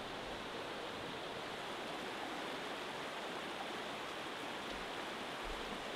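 Shallow rocky creek running over rapids: a steady rush of water.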